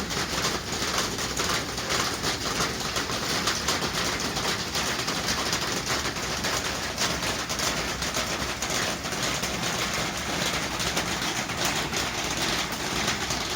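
Light rain easing off, with water dripping and tapping as a steady dense patter of small ticks.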